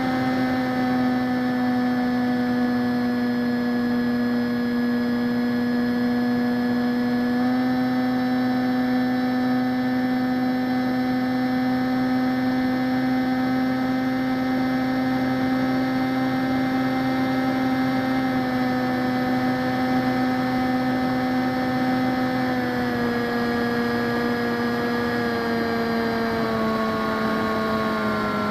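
Brushless electric motor and pusher propeller of a ZOHD Dart XL flying wing, heard through its onboard camera: a steady buzzing whine that eases down at first, lifts slightly about seven seconds in, and then drops in two steps near the end as the throttle comes back for the landing approach.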